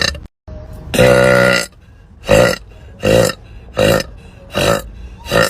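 A woman burping: the end of one burp at the start, then one long burp about a second in, followed by a run of five short burps evenly spaced a little under a second apart.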